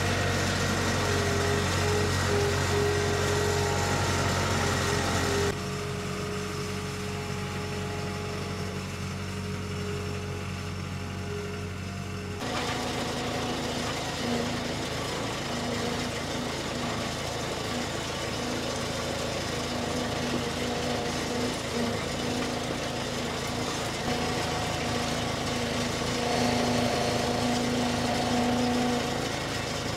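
Skid steer loader's engine running steadily, its sound dropping and changing abruptly twice, about five and twelve seconds in.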